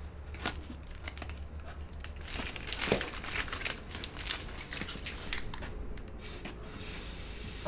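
Masking tape being peeled off and crumpled: irregular crackling, tearing rips, busiest about two to four seconds in.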